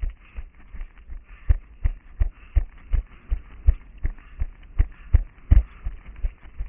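A runner's footfalls on paving and cobblestones, heard as low thuds through a head-mounted camera, a steady rhythm of about three strides a second.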